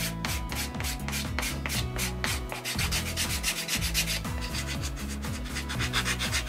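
Hand file rubbing back and forth along the cut edge of a vegetable-tanned leather piece, a quick run of scratchy strokes, several a second, to smooth the edge.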